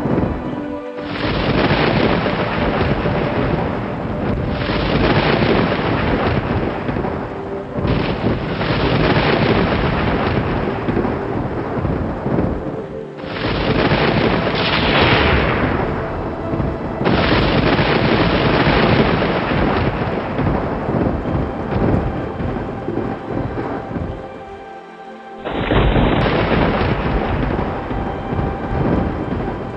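Thunderstorm: heavy rain with thunder rumbling, the sound changing abruptly every few seconds as different storm recordings are spliced together.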